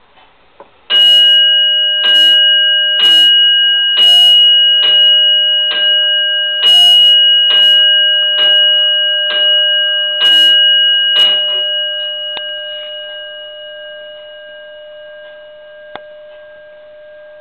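The bell of a French Comtoise clock from around 1840–1850 striking twelve, loud, about one stroke a second. After the last stroke the bell's ringing fades away slowly over several seconds.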